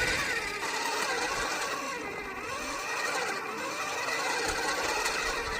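Small electric motor of a mini toy pottery wheel whirring steadily as it spins, its pitch wavering up and down.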